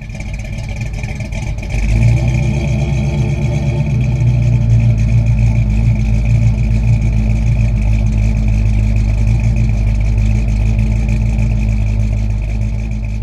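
Vehicle engine running, stepping up in revs and level about two seconds in and then holding steady, with a steady high whine over it, easing off slightly near the end.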